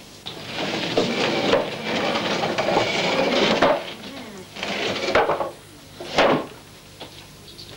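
Rattling, clattering knocks of handled objects in three spells: a long one at first, a shorter one about halfway through, and a single sharp knock near the end.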